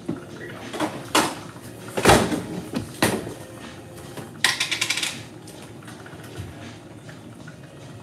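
Kitchen things being handled at the counter: a few separate knocks and clunks, the loudest about two seconds in, then a short, quick rattle about four and a half seconds in.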